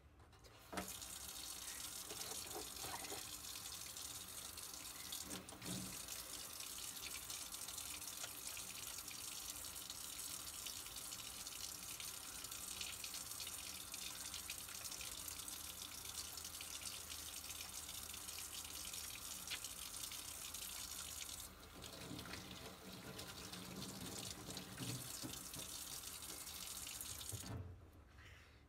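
Faucet water running steadily into a sink while hands are scrubbed under the stream. It is turned on with a click about a second in and shut off shortly before the end.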